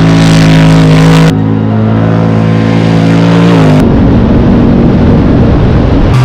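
Off-road race truck engine running hard at steady high revs, with abrupt jumps from one stretch to the next. A few seconds in, the pitch drops and the sound turns rough and noisy.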